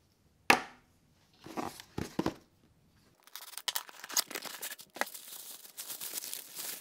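A small cardboard box set down with one sharp knock, followed by a few lighter knocks. About three seconds in, its packing tape is slit with a utility knife and the box is torn open, with a steady crackle of tearing tape and crinkling packing paper.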